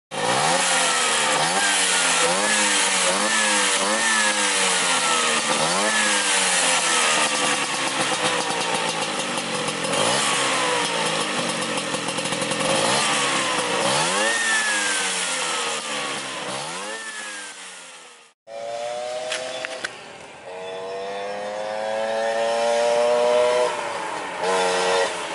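Classic Vespa's two-stroke engine through an RF racing exhaust, revved again and again in quick throttle blips, each one rising and falling in pitch; the exhaust note is crisp. After a cut the scooter is ridden and accelerates, its engine note climbing in pitch with a break between gears.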